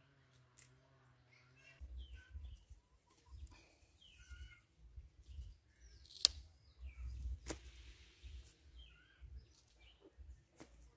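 Wind buffeting the microphone over outdoor ambience with birds chirping, and two sharp clicks about six and seven and a half seconds in. A steady low hum runs for the first two seconds, then stops.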